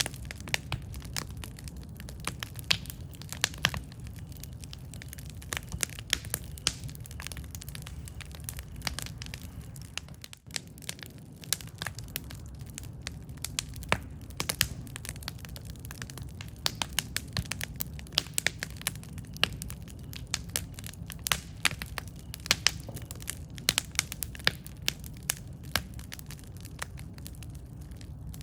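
Campfire burning with many sharp, irregular crackles and pops over a steady low rumble.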